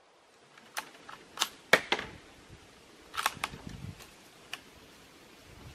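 CZ 527 bolt-action rifle's bolt worked by hand after a shot: a quick series of sharp metallic clicks and clacks. The loudest comes just under two seconds in, with a second cluster a little past three seconds and a few lighter ticks after.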